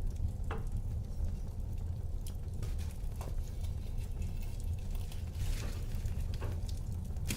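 Wood fire burning in a fireplace: a steady low rumble of flames with scattered crackles and pops, and a short spell of hissing near the end.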